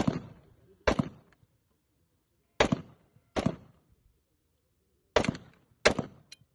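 AR-style semi-automatic rifle firing six single shots, each a sharp crack with a short echo. The shots come in three pairs about 0.8 seconds apart, with roughly two-second pauses between the pairs.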